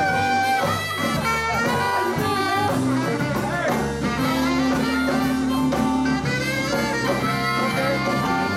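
Live blues band playing: electric guitar, bass, drums and keyboard keep a steady groove under a lead line that bends in pitch.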